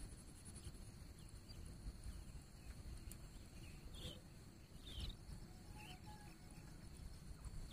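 Quiet outdoor background with a low rumble, a faint steady high hiss and a few faint short chirps about four to six seconds in.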